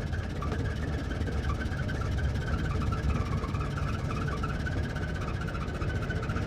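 1924 Ford Model T's four-cylinder engine running steadily, a low even rumble with a rougher higher mechanical whir over it.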